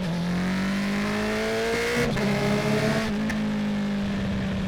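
2019 Honda CB650R's inline-four, through a full Akrapovic titanium exhaust, pulling under acceleration with its note rising steadily. The note breaks briefly about two seconds in, and again about a second later, as the quickshifter snaps through upshifts.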